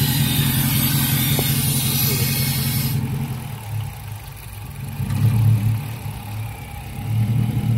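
Chrysler Hemi V8 running at idle with its PCV hose pulled off, an open vacuum leak meant to make it sound cammed. The engine note swells louder twice in the second half. A high hiss stops suddenly about three seconds in.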